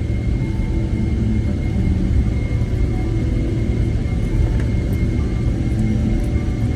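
Boeing 777-300ER with its GE90 engines running, a steady low rumble with a thin, steady high-pitched whine over it.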